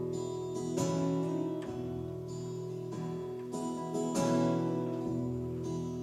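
Acoustic guitar strumming chords between sung lines of a live folk song, a fresh strum roughly every second, ringing out in a reverberant cavern.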